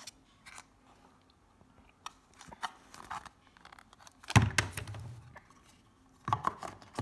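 Cardboard packaging of an Apple TV 4K box being handled: scattered scrapes, rustles and small knocks, with a louder thump about four seconds in.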